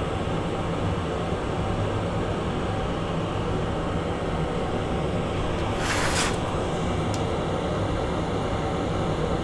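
Steady whirring background noise with a low electrical hum, and a brief hiss about six seconds in.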